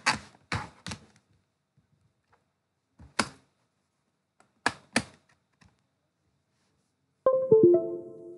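A few sharp plastic clicks, three near the start, one about three seconds in and two near five seconds, as a connector and controls are handled. Near the end a short computer notification chime of a few stepped notes rings out, the sound of a device being connected to the laptop.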